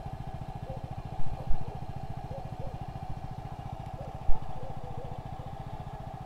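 Honda Pop 100 motorcycle's small single-cylinder engine idling with an even, quick putter. A few sharp knocks come over it, twice about a second in and once past four seconds.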